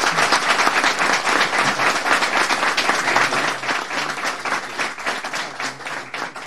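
Room of people applauding, many hands clapping together. Loud at first, then dying away over the last two seconds or so.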